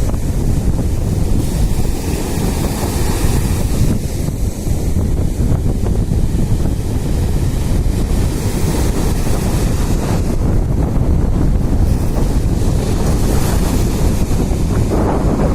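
Sea surf and wind, with the wind buffeting the microphone: a loud, steady wash of noise whose upper hiss swells and fades.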